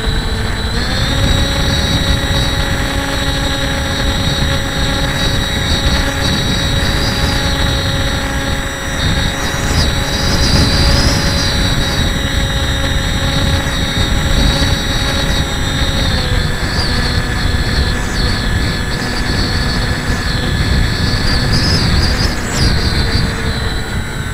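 Electric motor and propeller of a HobbyKing Breeze RC plane heard from its onboard camera: a steady whine that steps up in pitch about a second in and drops back about two-thirds of the way through as the throttle changes, over wind rushing past the microphone in flight.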